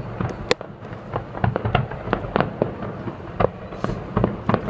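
Aerial fireworks show heard from a distance: a rapid, irregular run of shell bursts and crackling pops, several a second, over a low rumble.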